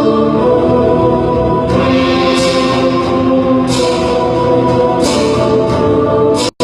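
Solemn choral music with held voices and chords and a few bright swells. The sound drops out for a split second near the end.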